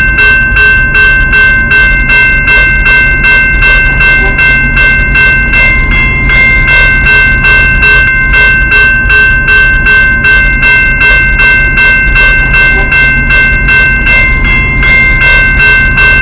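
General Signals Type 2 electronic railroad crossing bell (E-bell) ringing continuously, a steady run of about four sharp dings a second over a sustained ringing tone.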